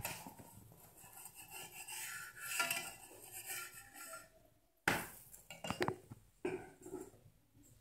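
Metal spatula scraping and rubbing against an iron frying pan while a corn flatbread is turned, then a run of sharp clinks and taps of metal on the pan from about five seconds in.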